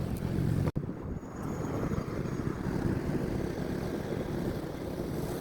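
Steady low rumble of a vehicle on the road, interrupted by a sudden momentary dropout about a second in.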